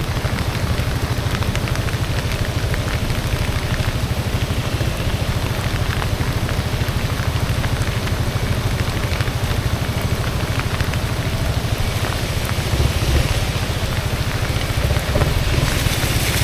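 Riding noise on a Honda Forza 350 scooter in the rain: wind rumble on the action-camera microphone, a steady patter of raindrops and the scooter running underneath, growing a little louder near the end.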